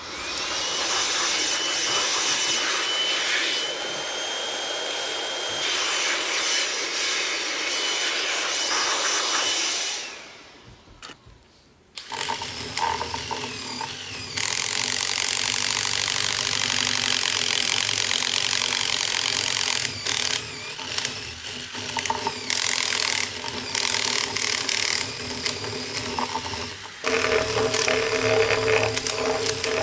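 Cordless drill with a long bit boring down into a log: the motor whines steadily under load for about ten seconds, winds down and stops, then starts again and runs on with short stops and restarts as the bit chews deeper into the wood.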